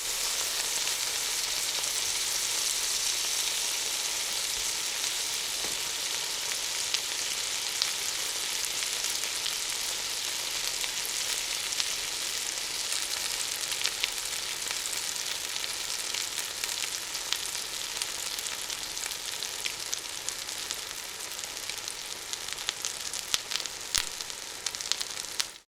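Food frying in a pan: a steady hot-oil sizzle with scattered sharp pops and crackles, the pops growing more frequent near the end before it cuts off suddenly.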